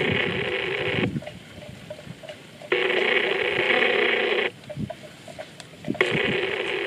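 Phone-like electronic ringing, sounding three times with sharp starts and stops and cut off above and below like sound through a phone. Between the rings come soft scrapes of water buffalo calves tearing grass.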